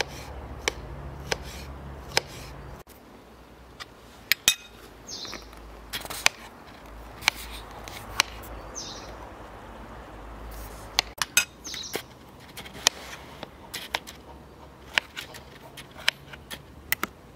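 Kitchen knife chopping green pepper and tomato on a cutting board: irregular sharp taps of the blade striking the board, sometimes several a second, with pauses between runs.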